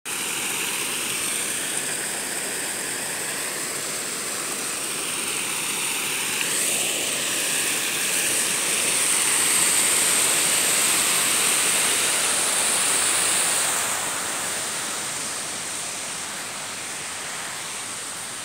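Water pouring over a low concrete weir across a river and splashing into the shallow channel below: a steady rushing that is loudest around the middle and fades over the last few seconds.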